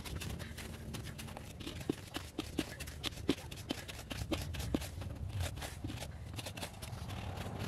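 Hand trowel digging into gravelly garden soil: a run of irregular short scrapes and crunches as the blade cuts in and scoops the dirt out.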